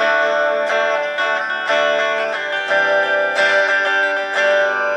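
Epiphone Les Paul SL electric guitar on its bridge pickup, played clean through the starter pack's small 3-watt practice amp. Chords are strummed and left to ring, changing about once a second.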